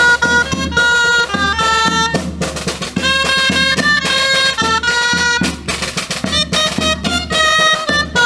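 Dulzainas, the Castilian wooden shawms, playing a quick folk tune with reedy, piercing notes that change several times a second, over a drum beating the rhythm.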